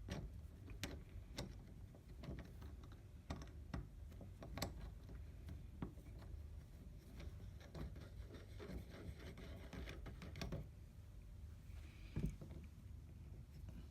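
Faint, irregular clicks and taps of metal parts as a quick-pull lock tool's block is slid onto a key blank seated in a Kwikset knob lock, with a denser run of clicks late on and a single stronger knock near the end.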